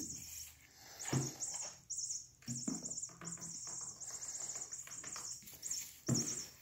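A run of short, high, mouse-like squeaks repeating over and over, meant to excite a cat. Every so often a sudden knock or rustle of cardboard breaks in, the loudest near the start, about two and a half seconds in, and near the end.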